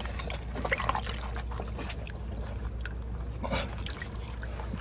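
Shallow seawater in a rock pool trickling and splashing softly as gloved hands grope around under a rock. There is a slightly louder splash about three and a half seconds in.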